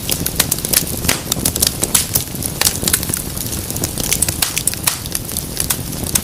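Wood fire burning in a fireplace, crackling with many sharp snaps and pops, several a second, over a steady low rumble of flame.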